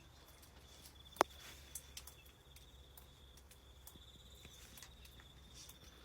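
A faint, steady high-pitched insect trill, with a single sharp click about a second in.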